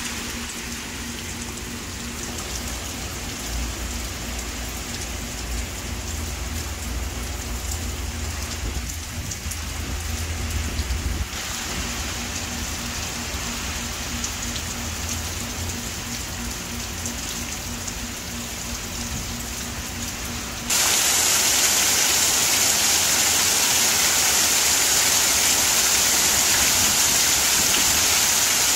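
Steady rain falling and splashing on surfaces. About twenty seconds in, it cuts suddenly to louder, harder rain.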